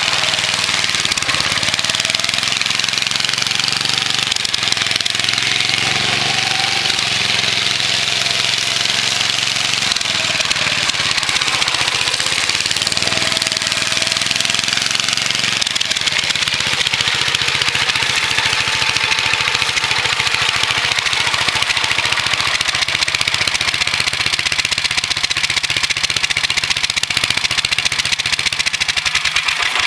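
Small single-cylinder engine of a homemade ride-on rotary mower running steadily under way, with a hiss from the spinning blade deck. About halfway through its note changes to a steadier, even firing beat.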